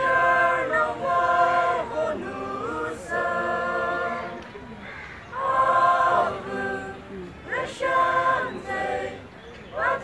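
A group of voices singing unaccompanied, in held phrases with short pauses between them.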